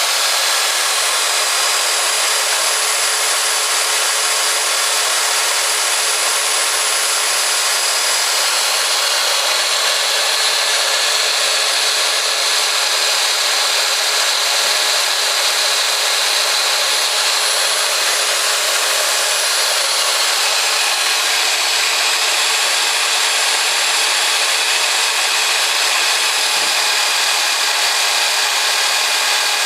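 Rox RB-100 band saw running steadily, its blade cutting through a 115 mm round pipe: an even motor tone over the steady hiss of the blade, with no breaks.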